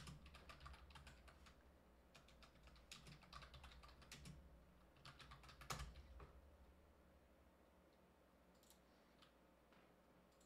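Faint typing on a computer keyboard: a run of quick key clicks for about six seconds, then only a few scattered clicks near the end.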